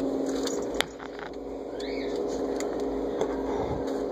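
Close handling noise from a handheld camera while a kitten is petted: rustling and small clicks over a steady low hum, with a sharp click about a second in and a short high squeak near two seconds.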